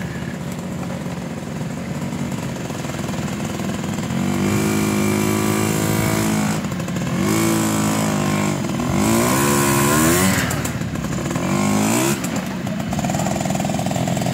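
Yamaha V80 two-stroke step-through motorcycle revving hard under load as it climbs a rocky trail. The engine pitch rises and falls again and again, loudest about ten seconds in as the bike passes close by.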